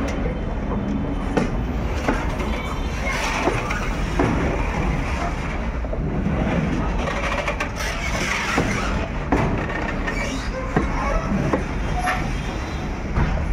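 Loaded freight-train flat wagons rolling past, steel wheels on rail giving a steady rumble broken by irregular clicks and knocks.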